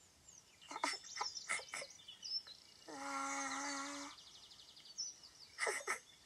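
Birds chirping behind a few short plucked or clicking sounds in the first two seconds. Then a single steady musical note is held for about a second in the middle.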